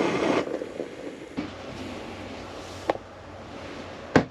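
Jetboil butane stove burner hissing, then shut off about half a second in once the water has boiled. A few light clicks follow, with a sharp knock near the end.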